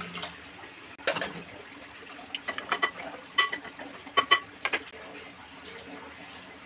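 A utensil clinking against the metal pressure cooker pot while rice and water are stirred: a clatter about a second in, then a run of short, ringing clinks.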